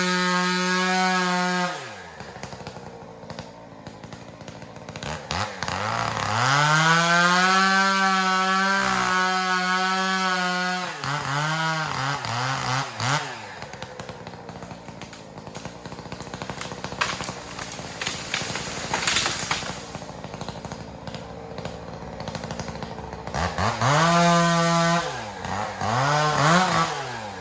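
Two-stroke chainsaw at full throttle, dropping to idle about two seconds in. It is then revved up and held high for several seconds, blipped a few times and left idling, and revved twice more near the end.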